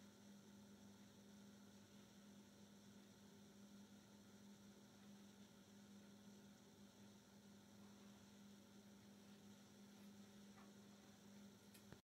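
Faint steady electrical hum with a low tone, cutting off suddenly near the end.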